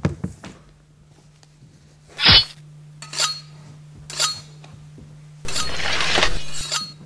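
Metallic clinks and rings. A sharp hit comes first, then two short rings about a second apart, then a longer noisy ring lasting about a second and a half. A steady low hum runs underneath.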